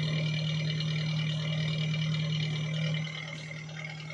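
2010 Maruti Gypsy's 1.3-litre four-cylinder petrol engine idling steadily, heard close to the tailpipe. It gets quieter about three seconds in.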